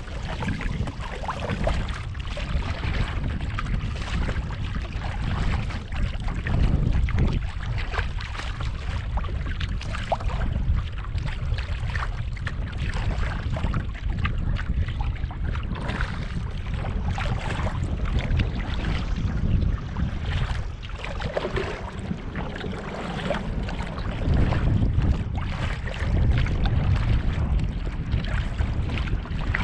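Wind rumbling on the microphone, with water slapping and splashing irregularly against a kayak's hull on choppy water.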